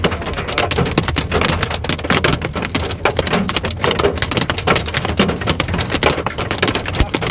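Hail hitting a van's roof and windshield, heard from inside the cabin: a dense, continuous clatter of many sharp impacts.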